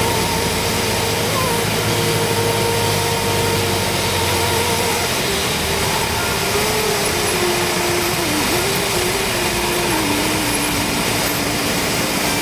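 Cockpit noise of a Cessna 172 landing and rolling out: the engine throttled back to idle, with a steady rush of air and a thin wavering tone that sinks in pitch through the second half.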